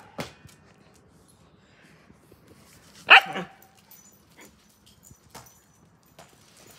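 A dog barks once, loud and short, about three seconds in, with a few faint taps and knocks around it.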